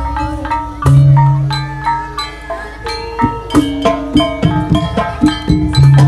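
Gamelan ensemble playing: bronze metallophones strike a quick, ringing melody of several notes a second, with deep sustained gong notes about a second in and again near the end.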